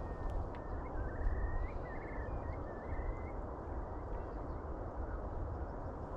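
Steady outdoor wind noise with a low, buffeting rumble, and a few faint, short chirping bird calls during the first half.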